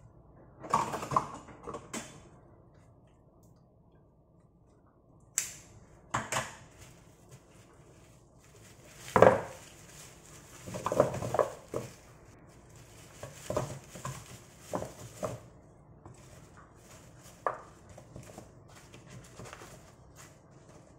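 Garlic bulbs being tipped from a plastic bag into a newspaper-lined wooden caddy and arranged by hand: irregular crinkles of plastic and paper with light knocks of bulbs against the wood, a dozen or so separate bursts with pauses between.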